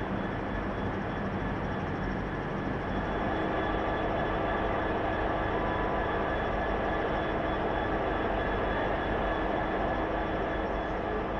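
Colas Rail Freight Class 66 diesel locomotive's engine, a two-stroke V12, running steadily with a constant drone and a few steady whining tones, growing slightly louder about three seconds in.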